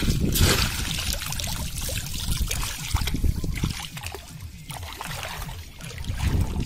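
Water splashing and running off a bamboo fish trap as it is lifted out of shallow water, loudest in the first second, then sloshing steps wading through shallow floodwater.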